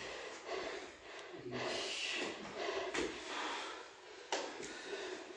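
Quiet scattered knocks and shuffling of bodies and bare feet on a dojo floor as a karateka in a gi gets up from lying on his back.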